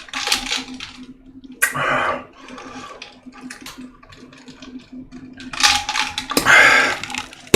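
Someone drinking cola close to the microphone: a few short noisy gulps and mouth sounds, the loudest near the end. A faint steady hum runs underneath.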